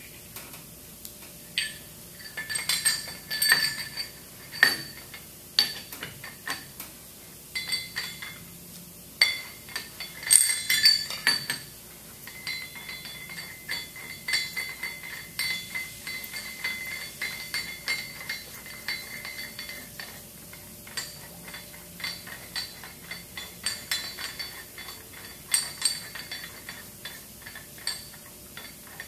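Steel bolts clinking against each other and against the pump motor's stainless-steel top flange as they are set in and threaded by hand: a run of irregular light metallic clinks and taps. A ringing tone lingers for several seconds midway.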